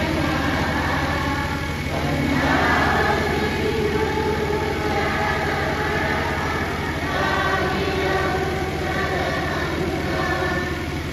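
A group singing together in long, slow phrases, as for a national anthem, over a steady low hum.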